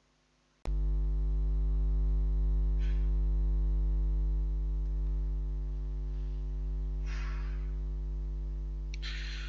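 Steady electrical mains hum from the recording chain, buzzy with many evenly spaced overtones. It switches on abruptly just over half a second in and fades slowly. A few faint puffs of noise sit over it.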